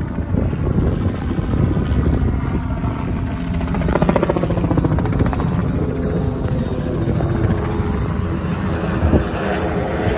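Police helicopter (N462PD) circling overhead, its rotor chop a steady, rapid pulsing that swells slightly about four seconds in.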